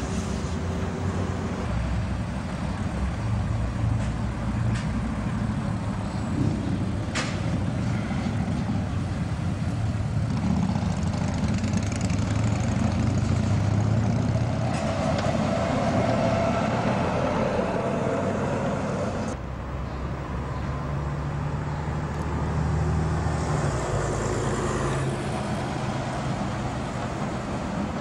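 Street traffic with trams and road vehicles passing, a continuous rumble of running gear and motors. There is a sharp click about seven seconds in, and the sound changes abruptly about nineteen seconds in.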